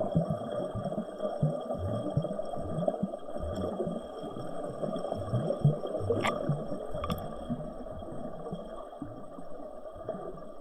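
Waterfall water rushing and churning steadily, with irregular low thumps and a faint steady high whine; two sharp clicks about six and seven seconds in.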